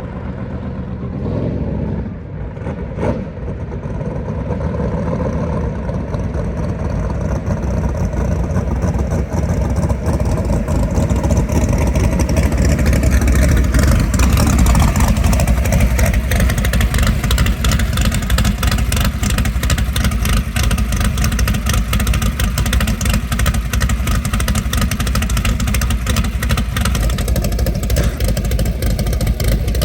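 Naturally aspirated Ford Mustang engine running hard at high revs. It builds over roughly the first dozen seconds, then holds loud and steady.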